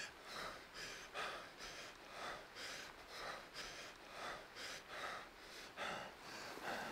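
An injured man panting on his back: quick, ragged gasping breaths through the open mouth, about two a second.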